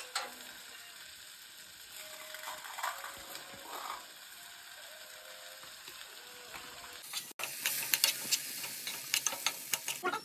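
Crushed dry Maggi noodles scraping and crackling in a frying pan on a gas stove. About seven seconds in, this gives way to a louder run of sharp crackles and clicks as the noodles fry in the pan.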